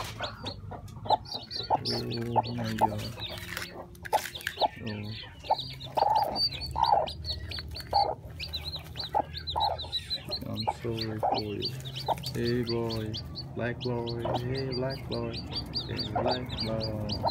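Broody hen clucking low on her nest of eggs while newly hatched chicks peep rapidly and continuously in high, short chirps.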